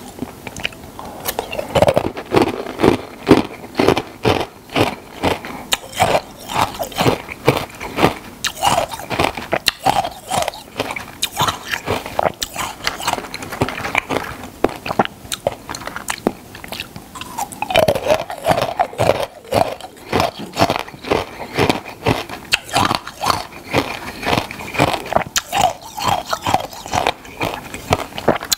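Close-miked biting and chewing of something hard and crunchy: rapid, irregular crunches and crackles, several a second.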